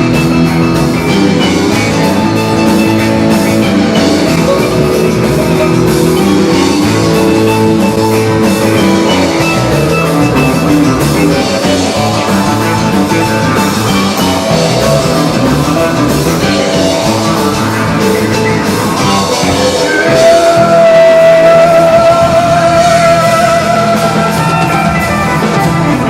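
Rock band playing an instrumental passage of a rock-and-roll song, with electric guitar and drum kit. About twenty seconds in, a lead line holds one long high note and the music briefly gets louder.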